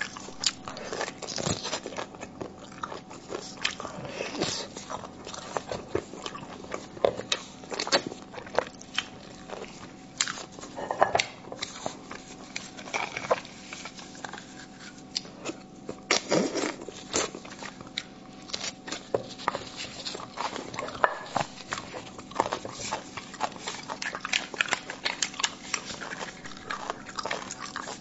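Close-miked eating of spicy braised beef bone marrow: wet chewing, smacking and slurping as the marrow is sucked out of the bones, with many short sharp clicks.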